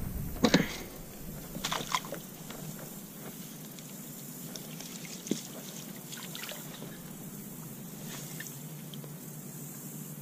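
Light water sloshing and a few sharp knocks, the loudest about half a second in, as a landing net is worked into weedy water beside a plastic kayak.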